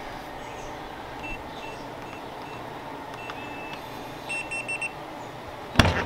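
Latch-it keyless RV door lock's keypad beeping as a code is punched in: a string of short beeps, one per key press, a longer tone, then four quick beeps about four seconds in. A sharp click follows near the end.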